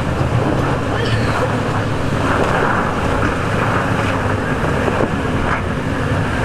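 An off-road 4x4's engine running steadily, with wind buffeting the microphone.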